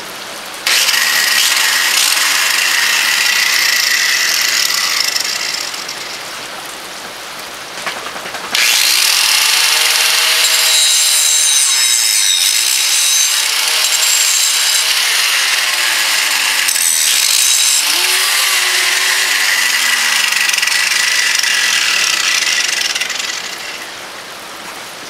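Angle grinder grinding down the crushed end of a steel bolt in two long passes: one starting about a second in and lasting about five seconds, then a longer one from about eight seconds in until near the end. During the second pass the motor's pitch sags and recovers several times as it is pressed into the bolt. Rain hiss fills the gap between the passes.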